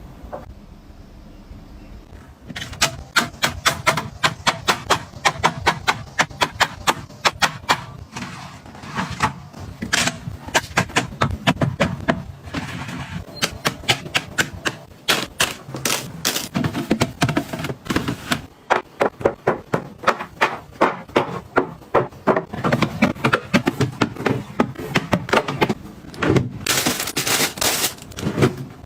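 Small hard objects being handled and set down in quick succession: a fast, uneven run of clicks and knocks over a low bed of handling noise.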